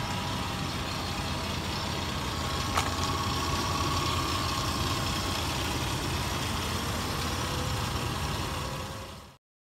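Chevy 3500 tow truck's engine idling steadily, with a single sharp click about three seconds in; the sound cuts off suddenly near the end.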